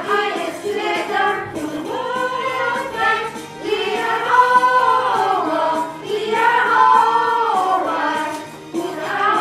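A song sung by a group of voices over backing music, with several long held notes.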